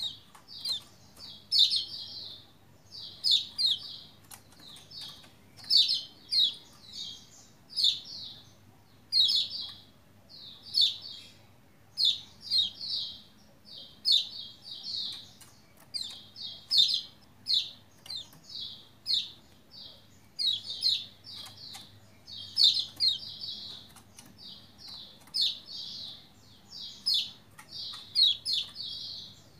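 Lombok white-eye (pleci lombok) singing in quick bursts of high chirps, a short phrase about every half second to second, with sharp little clicks between phrases.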